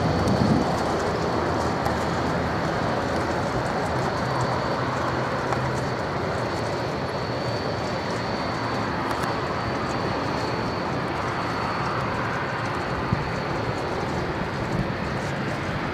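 Taxiing airliner turbine engines: a steady rush of engine noise with a high, steady whine running through it.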